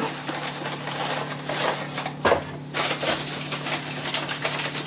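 Packaging rustling and crinkling as a twin marking gauge is unwrapped, with a sharp click a little past two seconds in.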